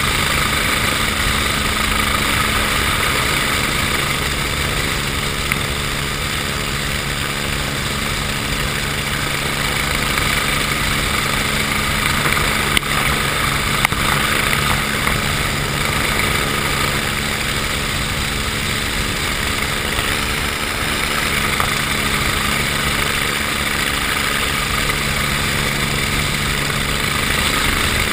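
Steady machinery hum and whine heard inside a container crane operator's cab, with two brief clicks about halfway through.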